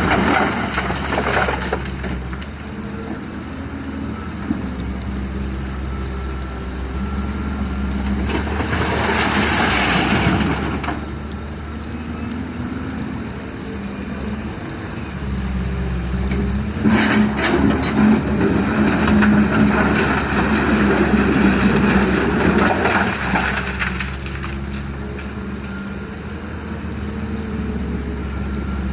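Diesel engine of heavy machinery at an excavator loading a dump truck with river material, running steadily. There are two louder stretches of rushing, clattering noise, one about nine seconds in and another around seventeen seconds in, with sharp knocks in the second.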